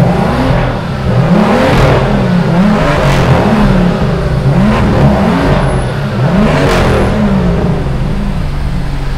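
BMW M2's turbocharged 3.0-litre straight-six revved in repeated blips through its M Performance valved exhaust, the pitch rising and falling back several times.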